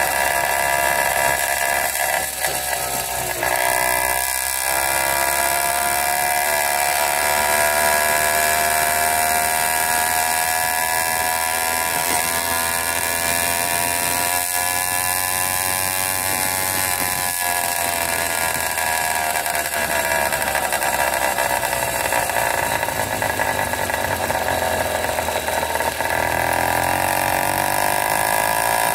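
80cc two-stroke bicycle engine kit running while the bike is ridden along. The engine's pitch drops about four seconds in, climbs slowly, falls off past the middle and rises again near the end as the throttle is worked.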